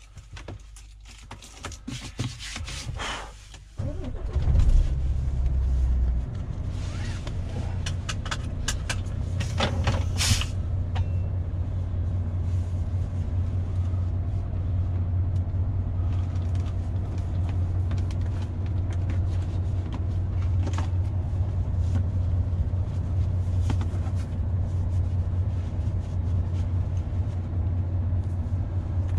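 MAN TGX 470 truck's straight-six diesel starting about four seconds in, running higher for a couple of seconds and then settling to a steady idle, heard from inside the cab. Clicks and handling noises in the cab come before the start.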